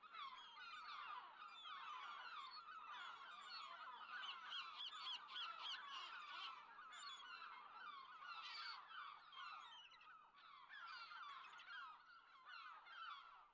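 Faint, continuous chatter of many short overlapping calls from a flock of birds, goose-like honking among them.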